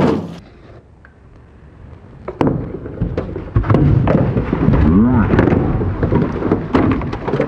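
A person falling headfirst from a boat into a canal: a dull lull, then about four seconds of loud, low, rumbling splashing and churning water with sharp knocks.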